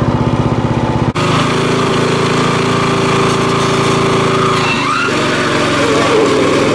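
Pulley-swapped Craftsman riding lawn mower engine running: a pulsing idle that changes abruptly about a second in to a steady, faster run as the rear tire spins in a burnout on a wooden board. From about five seconds in a rough scrubbing sound from the tire joins the engine.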